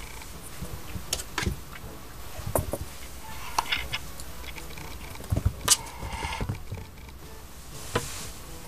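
A kitten playing with small plastic balls: scattered light taps, knocks and scuffling, with a cluster of sharper knocks a little past the middle.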